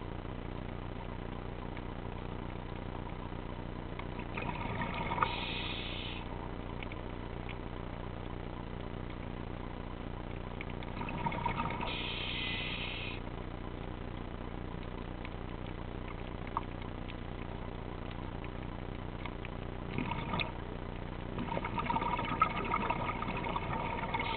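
Scuba diver's regulator breathing underwater: rushing breaths with bubbles about five and eleven seconds in, then a short one and a longer one near the end. Between them runs a steady low hum.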